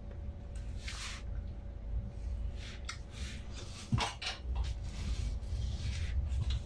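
Eating juicy watermelon: a few short wet bites and slurps, with a sharp click about four seconds in, over a steady low hum.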